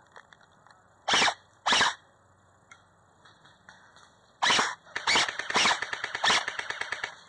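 Airsoft gun firing: two short bursts about a second apart, then a longer burst, then rapid full-auto fire at about ten shots a second for some two seconds.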